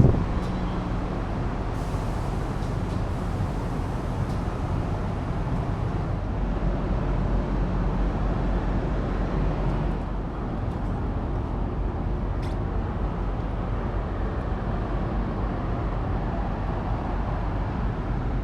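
A ferry's engines and machinery running with a steady low hum, under an even rushing noise.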